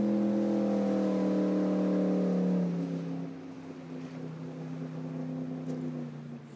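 Motorboat engine running as the boat passes across the lake, its pitch falling slowly, then fading away after about three seconds.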